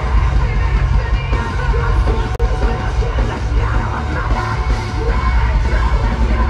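A rock band playing loudly live, with yelled vocals over the music.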